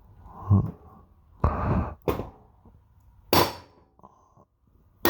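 A wooden mallet striking the input shaft assembly of a 1960 Ford three-speed transmission to drive the input shaft bearing off. It gives several separate knocks at irregular intervals, a few of them sharper with a metallic edge.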